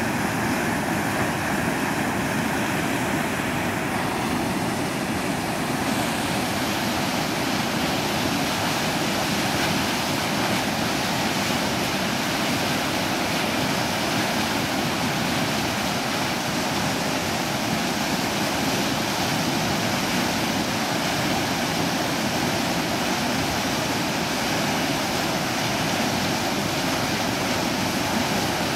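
Whitewater rushing steadily through a river hole running high, at about 2500 cubic feet per second.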